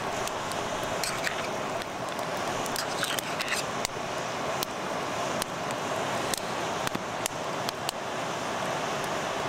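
Steady rush of a flowing river, with sharp, irregular pops and crackles from a wood campfire.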